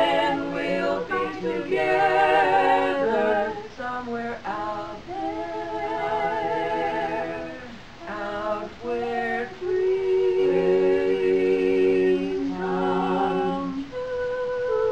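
A quartet of women singing a cappella in close harmony: several voices at once, holding sustained notes with vibrato, phrase by phrase.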